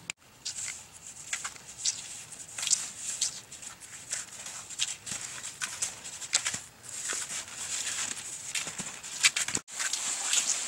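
Cross-country skis and poles crunching and scraping on snow: a string of sharp, irregular crunches, about one or two a second, over a steady high hiss.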